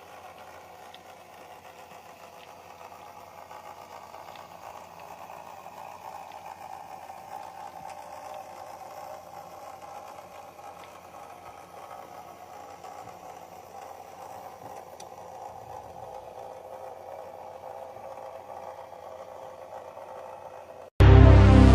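Model train running along the track: a steady hum of its small electric motor with rattling wheels, growing a little louder over the first few seconds. Loud music cuts in suddenly just before the end.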